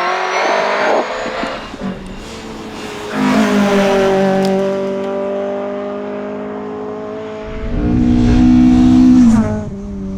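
Fiat Abarth 131 Rallye's twin-cam four-cylinder engine heard from inside the car, pulling through the gears at pace with rises and falls in pitch. It surges about three seconds in, runs loudest in a deeper stretch late on, then drops away suddenly near the end as the throttle is lifted.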